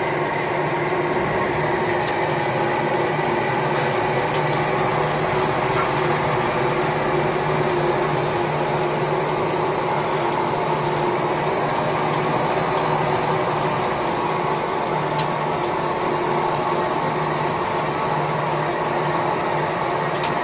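ALTCK36A slant-bed CNC lathe turning a long metal shaft held between chuck and tailstock centre: the spindle and drive run steadily with a hum made of several steady tones, and a few faint clicks.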